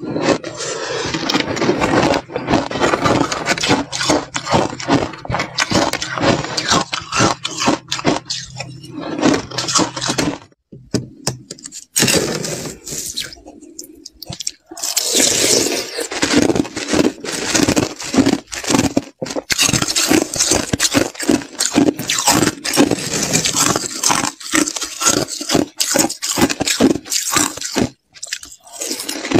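Slushy ice being chewed and crunched close to a clip-on microphone: a dense run of crackling bites, with a short pause a little before halfway.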